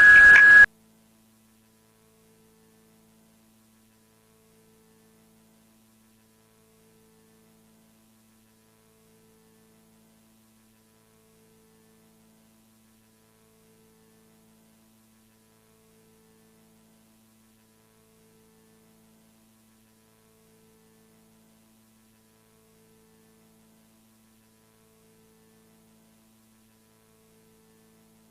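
Loud electronic music cuts off abruptly under a second in. Near silence follows, with only a faint steady low hum and a fainter tone that swells and fades about every two seconds.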